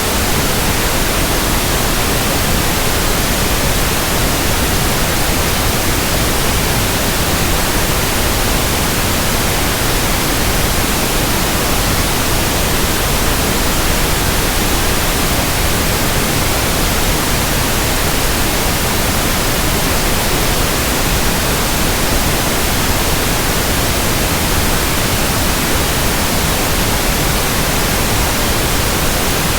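Steady pink noise: an even, unchanging hiss spread across the whole range of pitch, used as a tinnitus sound-matching and masking sample.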